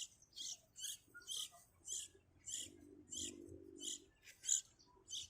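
Baby bird chirping over and over, short high calls at about two a second.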